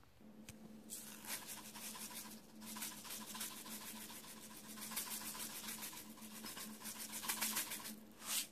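Sesame seeds shaken from a shaker onto a bowl of noodles: a fast, even rattle of light ticks, about seven or eight a second, that stops near the end, over a steady low hum.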